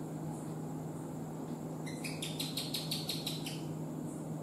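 House gecko chirping: a rapid series of about ten sharp, high clicks over a second and a half, starting about two seconds in.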